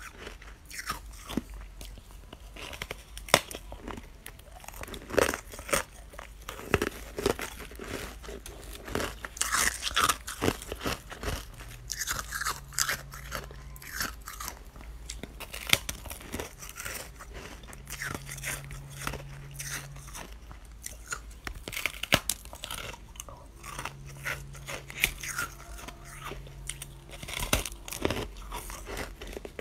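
Close-up crunching and chewing of freezer frost: irregular sharp, crackly bites and grinding of frozen ice crystals in the mouth.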